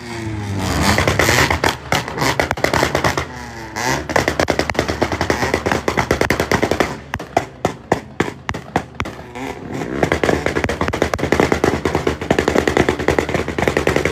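Honda Civic engine revved and let off several times, its exhaust crackling with rapid strings of pops and bangs after each rev.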